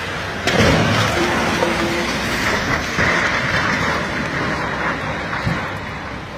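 Road traffic noise in snowy conditions: a vehicle passing with a steady rushing sound, with a sharp knock about half a second in.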